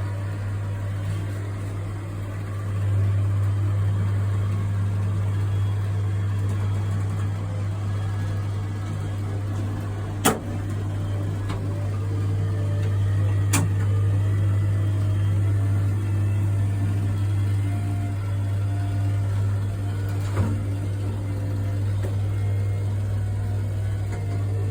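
HomeDome observatory dome's azimuth drive motor running with a steady low hum while the dome rotates, broken by three sharp clicks or knocks about ten, thirteen and twenty seconds in.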